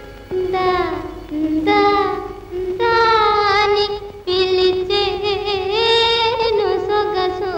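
A high female voice sings a slow melody in long held notes, several with a wavering vibrato, in an old Telugu film song.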